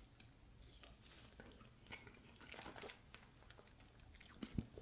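Faint biting and chewing of a Skyr ice cream bar with a crisp outer coating: small scattered crunches and mouth sounds.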